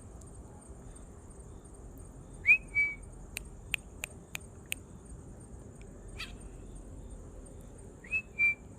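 Puppy whimpering: two short, high-pitched squeaks, each rising quickly then held briefly, about six seconds apart, with a quick run of sharp clicks in between.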